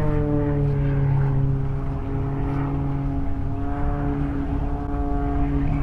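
Aircraft engine drone from a stunt plane flying overhead, its pitch dropping as it passes at the start, then holding steady with a slight rise near the end.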